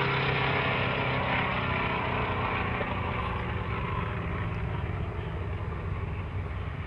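Two drag cars, one of them a twin-turbo LS-powered Chevy II Nova, running hard down the strip side by side. Their engine noise fades steadily as they pull away.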